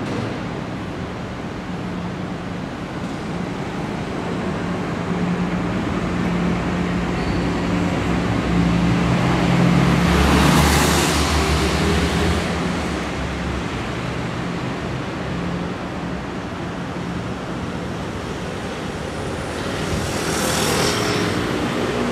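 Street traffic: steady road noise with the low hum of vehicle engines. One vehicle passes close about halfway through, and another comes up near the end.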